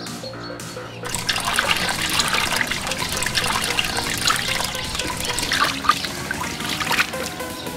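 Water poured in a stream into a shallow plastic tub, splashing and sloshing around an eel as hands rub it clean, starting about a second in.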